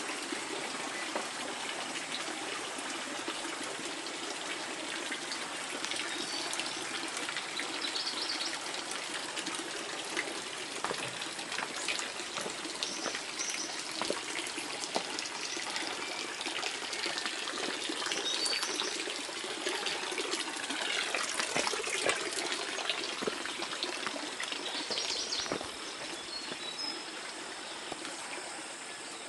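Steady rushing background noise, like running or trickling water, with a few short, high chirps scattered through it.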